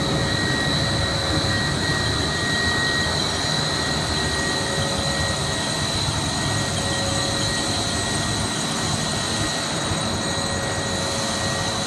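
Plastics compounding line with a twin-screw force feeder and single-screw extruder running steadily: a constant machine drone with a high steady whine on top. A fainter whistle fades out about three seconds in.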